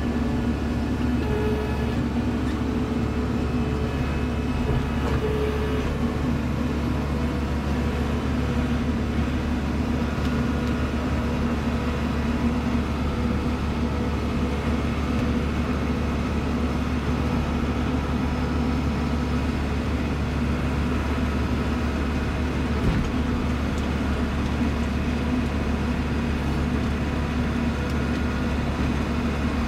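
Kubota Grand L 4760 tractor's diesel engine running steadily under load, driving a front PTO snowblower, heard from inside the closed cab. A single small knock sounds a little past the middle.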